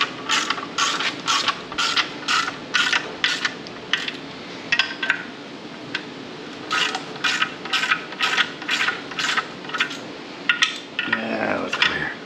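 Hand socket ratchet on an extension clicking in runs of quick strokes, about three clicks a second, as clutch pressure plate bolts are tightened down onto the flywheel. The clicking pauses for about two seconds in the middle.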